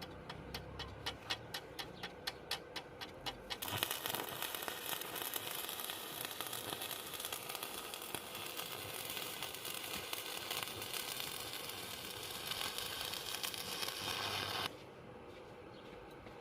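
Stick (MMA) arc welding with an iBELL M220-76 inverter welder: a run of quick ticks for the first few seconds, then the arc crackles and sizzles steadily for about eleven seconds and cuts off suddenly near the end.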